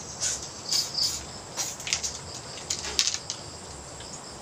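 Insects chirping, with a pair of short high chirps about a second in over a faint steady high drone, and a few short sharp knocks scattered through.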